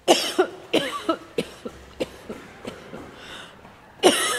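A person coughing over and over in short, sharp bursts, about three a second, with a louder cough near the end.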